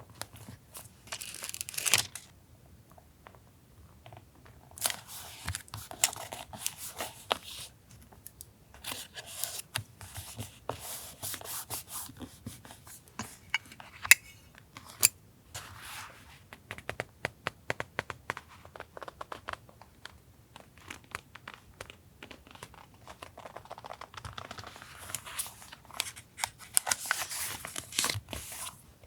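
Paper being handled for collage journaling: bouts of tearing and crinkling paper come and go with short pauses between, mixed with sharp clicks and taps, the loudest about halfway through.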